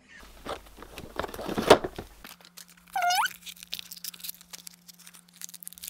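Foil blind-bag packet rustling and crinkling as it is handled and torn open, in irregular crackles. About three seconds in there is one short high squeak that glides upward.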